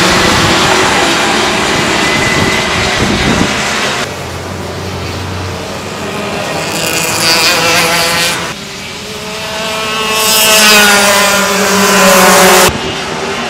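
Racing karts' two-stroke engines buzzing at high revs as karts run past, with the pitch climbing as one accelerates, about nine to twelve seconds in. The sound changes abruptly three times, about 4, 8.5 and 12.7 seconds in.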